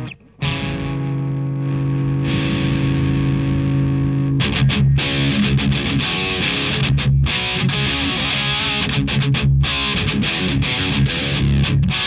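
Heavily distorted electric guitar through a Madbean Upper Decker high-gain amp emulator pedal. A held chord rings for about four seconds, then gives way to a fast, choppy riff with short stops.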